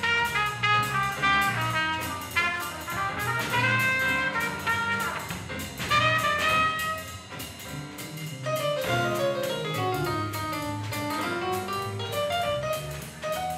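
Live jazz band playing: trumpet phrases over electric keyboard, electric bass and drum kit. About two-thirds of the way in the trumpet line stops and the keyboard carries the melody.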